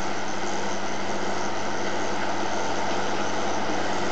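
Large farm tractor's diesel engine running steadily under load while pulling a disc harrow across ploughed ground, an even hum with no changes in pitch.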